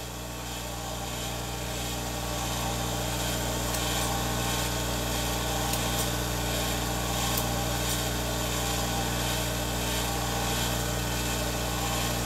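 Motor of a Twice As Sharp scissor sharpening machine running with a steady hum, growing a little louder over the first couple of seconds. A few faint snips come from grooming shears cutting test paper.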